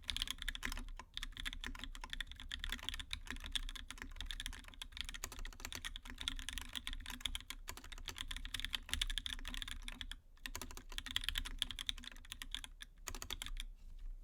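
Continuous fast typing on a Duck Octagon v2 mechanical keyboard with Krytox-lubed Gateron Yellow linear switches, GMK keycaps and an aluminium case: a dense stream of keystroke clacks, with short pauses about a second in and near ten seconds.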